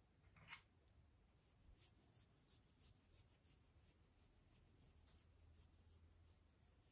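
Faint, quick rustling of a hand stroking and scratching a Shiba Inu's coat, about three strokes a second, starting about a second and a half in, after one brief faint sound.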